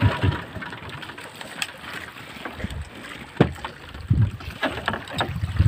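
Small outrigger boat's engine stops just after the start. Then wind and water around the drifting boat, with a few sharp knocks and taps, the loudest about three and a half seconds in.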